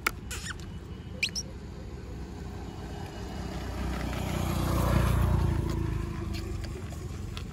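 A vehicle passes on the road: its noise swells to a peak about five seconds in, then fades. Near the start there is a sharp click and a brief high, rising chirp.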